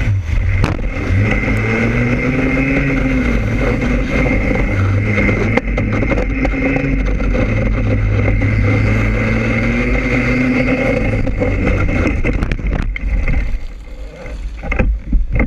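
Racing kart's two-stroke engine running at low, wavering revs during a crash off the track, with a few knocks. Near the end the engine sound drops away, leaving wind noise and scattered thumps.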